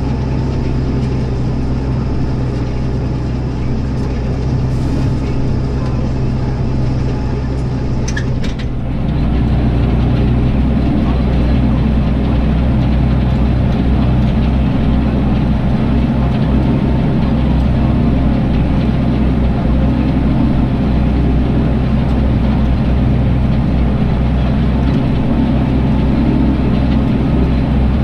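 Tractor engine running steadily under load while pulling a multi-furrow reversible plough through stubble. About eight seconds in, the sound becomes slightly louder and deeper.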